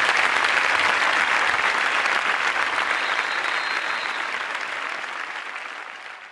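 A large crowd applauding, a dense, steady clapping that fades away over the last couple of seconds.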